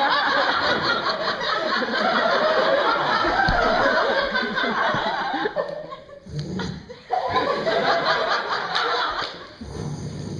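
Audience laughing, a dense loud wave of laughter that fades about five and a half seconds in, then swells again briefly about a second later.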